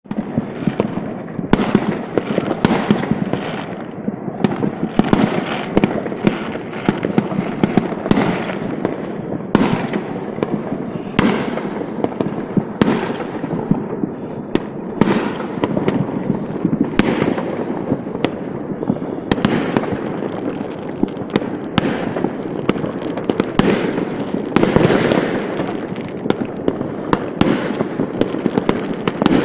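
Many fireworks going off at once: a continuous dense crackling, with sharp bangs and pops coming irregularly every second or so.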